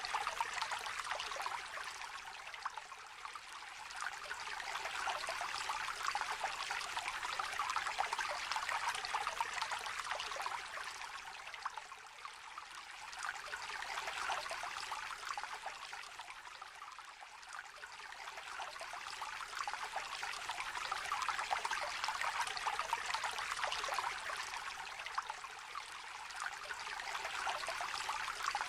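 Shallow river trickling and babbling over stones, a steady water sound that swells and eases slowly every few seconds.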